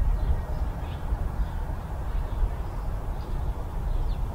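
Steady low outdoor rumble, with a few faint, high bird calls now and then.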